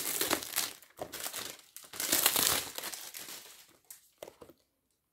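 Packaging crinkling and crumpling in the hands as a perfume box is unwrapped. The crinkling is dense for the first few seconds, then dies down to a few light handling noises.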